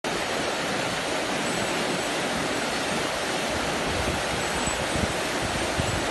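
Whitewater rapids of a rocky mountain creek rushing steadily.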